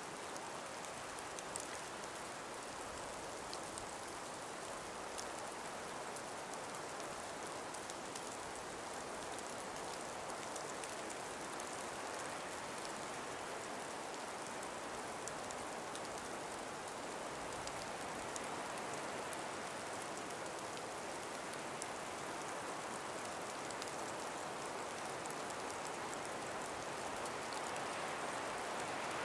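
Steady breeze through ice- and snow-laden forest trees: an even hiss with faint scattered ticks, growing a little louder near the end.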